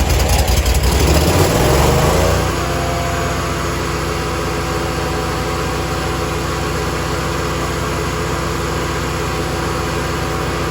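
Gasoline engine of a Bigbear BBC72 7-inch wood chipper just after starting, with choke out and throttle at high speed. It runs louder and unevenly for about the first two seconds, then settles into a steady, even run.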